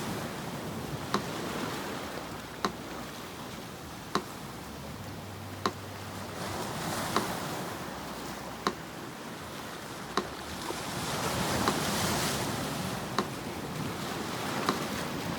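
Sea surf washing in slow swells, with a metronome ticking evenly about once every one and a half seconds, some forty beats a minute.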